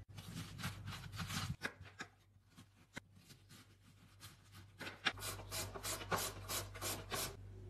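A chef's knife cuts through a raw cabbage on a plastic cutting board in a quick run of crunching strokes. Near the end, a carrot is rubbed rapidly over a julienne grater, about five rasping strokes a second.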